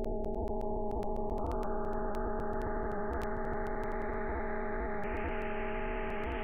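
Double-sideband demodulated audio from a software radio (CubicSDR) tuned to the thermoacoustic brain decoder's raw signal near 17 kHz. It is a steady hum of several low tones under a hiss, with scattered clicks. The hiss grows brighter in steps as the demodulator bandwidth is widened.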